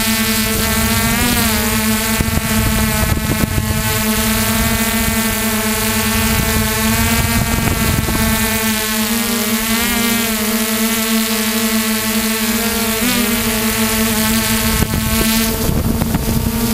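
Radio-controlled helicopter's motor and rotor heard from its onboard camera: a steady pitched drone that dips briefly in pitch about a second in and again near the end. Wind noise on the microphone rises in the last couple of seconds.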